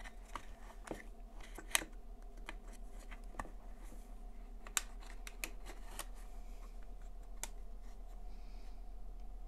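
Light clicks and rustling of wires being pressed into the channels of a plastic tool housing, with a few sharper plastic clicks, the loudest about two seconds in and again near the middle.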